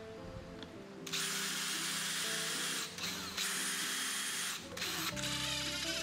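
Power drill running in three bursts of one to two seconds each, with a high steady whine.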